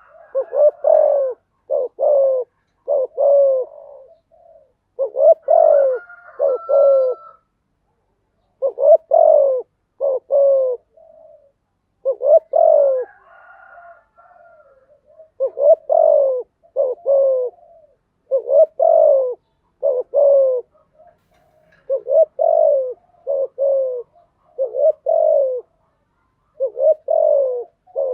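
Spotted dove cooing: repeated phrases of two or three deep coos, one phrase every two to three seconds. This is the male's territorial call, used here as a lure.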